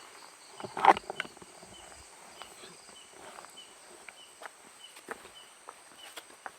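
Crickets chirping steadily with a high insect drone, a loud thump about a second in, and scattered light clicks and crunches afterward.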